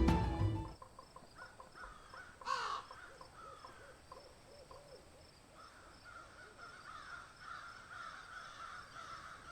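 Music fading out in the first second, then faint birds calling: one louder call about two and a half seconds in, a short run of repeated calls, and steady chirping from about halfway on.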